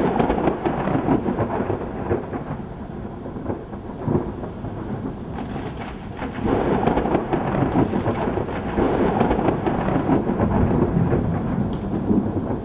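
Thunder rumbling in two waves: a sudden loud clap right at the start that rolls on and eases off, then a second long rumble swelling about six seconds in.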